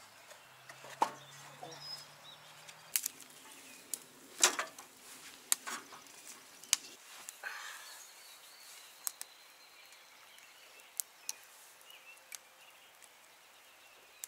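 A wood fire crackling with irregular sharp pops in a small metal fire pit, a few of the pops loud, while birds call faintly.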